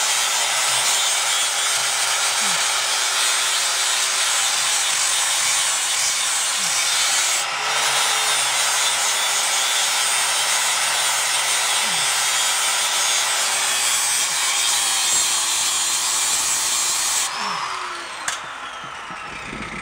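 Angle grinder with a wire wheel scrubbing rust off a steel rear axle housing: a loud, steady scouring hiss over the motor's whine, stripping the housing back to find rotted spots around an oil leak. About 17 seconds in it comes off the metal and is switched off, and the motor winds down.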